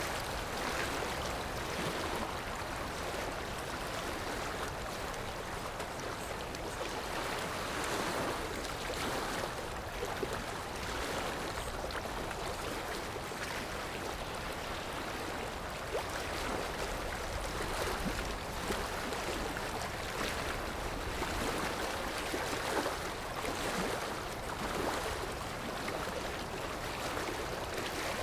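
Sea surf washing in, a steady rush of water that swells and eases every couple of seconds.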